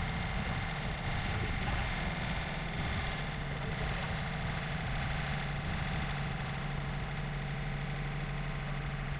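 John Deere compact tractor's engine running steadily at idle, a low even hum.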